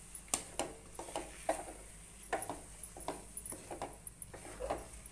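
A spoon scraping and knocking against a metal kadhai as thick moong dal halwa is stirred, in short irregular strokes about twice a second.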